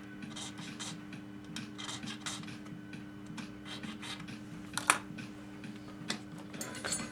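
Hand scraping and filing along the teeth of a small toothed rack, cleaning out the teeth so it stops catching, in irregular short strokes. A sharp click about five seconds in, over a steady low hum.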